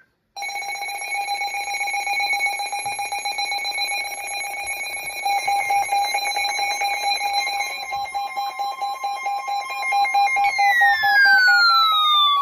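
Emergency Alert System attention signal: a steady two-tone electronic alarm announcing the emergency message that follows. About ten seconds in, a second tone joins it and glides steadily downward.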